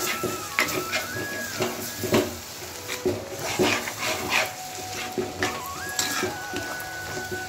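A metal spatula scraping and knocking against a heavy black pot as minced chicken is stirred, in uneven strokes every half second to a second, over a faint sizzle. The chicken is cooking down in its own juices, with no water added.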